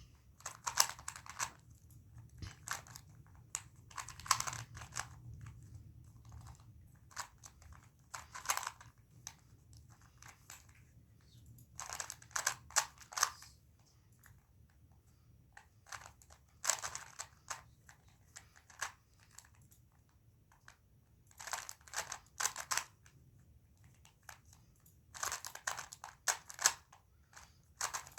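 A plastic 2x2 Rubik's cube being turned quickly by hand during a solve: bursts of rapid clicking and clacking as the layers rotate, separated by short pauses of a few seconds.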